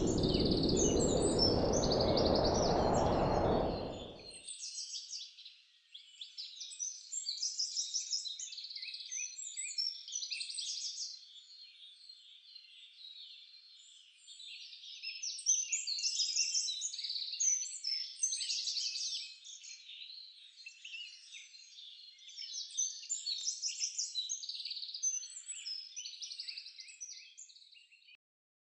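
Many small songbirds chirping and trilling at once in a dense, high-pitched chorus. For about the first four seconds a louder steady rushing noise lies underneath and then stops abruptly.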